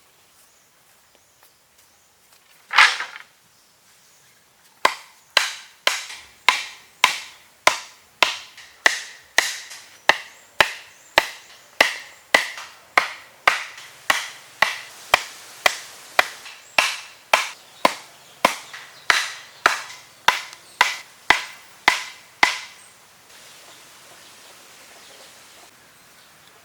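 A single heavy blow, then a long steady run of chopping strikes on wood, about two a second, each with a short ring, stopping about three-quarters of the way through.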